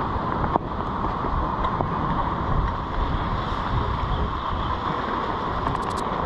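Wind buffeting the microphone over ocean surf washing against a rock ledge, a steady rushing noise with low rumble. A few sharp clicks near the end.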